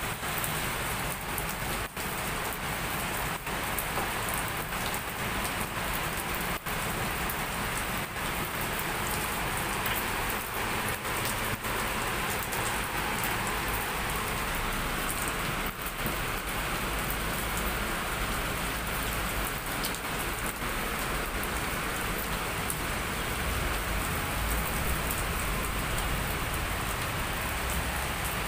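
Heavy rain pouring down steadily in a dense, even hiss. A low rumble comes in under it during the second half.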